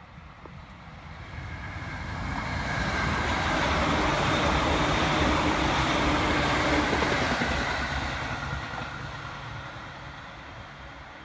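A converted 209 series electric train (JR East's MUE-Train) passing close by. Its running rumble and a steady whine rise as it approaches, hold loud for several seconds as it goes past, then fade as it moves away.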